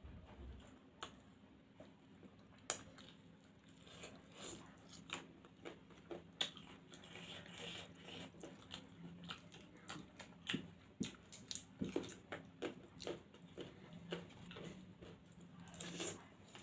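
Two people eating homemade noodles with a spoon and fork at close range: chewing and mouth sounds, with many short clicks and taps, more frequent in the second half, over a faint steady hum.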